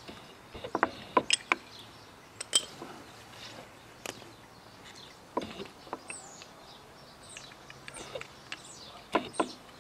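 Sharp metal clicks and knocks from a motorcycle's Tokico front brake caliper and its pads being handled and refitted: a cluster about a second in, more around two and a half seconds, and a pair near the end. Birds chirp faintly with short falling calls in the second half.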